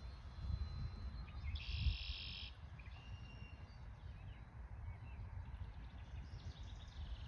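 Faint outdoor ambience: a low rumble throughout, with a short, buzzy bird call about two seconds in and a brief thin whistle just after it.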